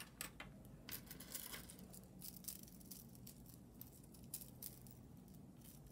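Faint light clicks and rustles of small costume-jewelry pieces being handled, over a low steady hum.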